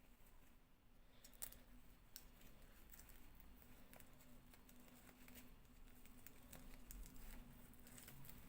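Faint, irregular clicks and light taps of small plastic toy pieces and packaging being handled, over a low steady hum.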